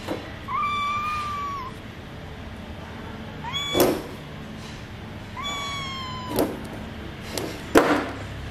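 Young kitten meowing in high-pitched calls: a long even meow about half a second in, a short rising one near four seconds, and a long falling one a little later. A few sharp knocks come with them, and the loudest knock is near the end.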